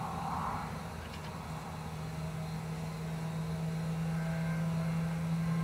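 A steady low drone that settles in about a second and a half in, after a hiss fades out in the first half second.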